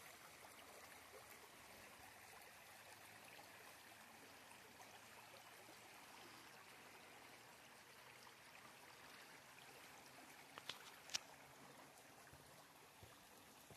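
Faint steady rush of running water from a stream. Three short sharp clicks about eleven seconds in.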